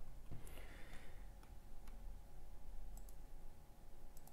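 A few separate, sharp computer mouse clicks, spaced out, over a faint steady hum.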